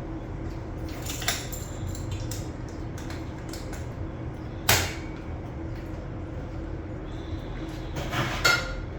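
Sharp clanks and clatters of milking equipment being handled: one about a second in, the loudest near the middle, and a couple more near the end. A steady low machine hum runs underneath.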